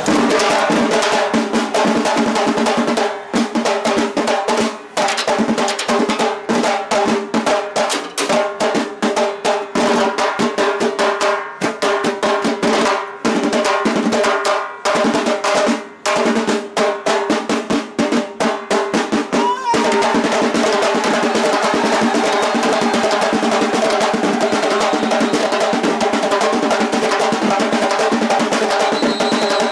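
Samba school bateria playing: surdo bass drums with snare and other drums. Through the first two-thirds the rhythm is cut by many short stops and accented hits, and from about two-thirds in it settles into an unbroken full groove.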